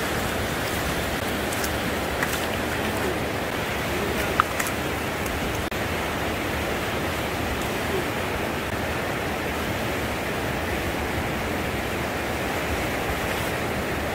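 Steady rush of sea surf on a rocky shore, with a few faint clicks and one sharp tick about four seconds in.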